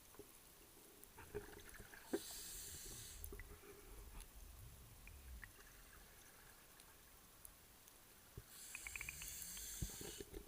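Scuba diver's regulator exhaust heard underwater: two bursts of exhaled bubbles, one about two seconds in and one near the end, each lasting about a second, with faint scattered clicks between.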